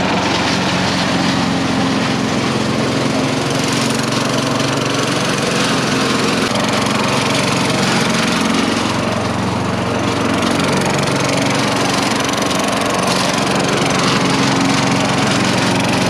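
Craftsman 4.5 HP yard vacuum's four-stroke engine running steadily at working speed while the vacuum is pushed over leaves, its pitch shifting slightly. The engine keeps running now that gunk holding the carburetor float down has been cleaned out.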